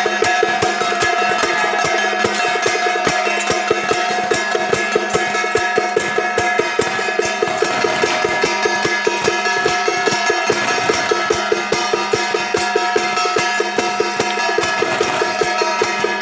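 Temple-procession music: a fast, even beat of sharp percussion strikes, about five a second, over sustained held tones.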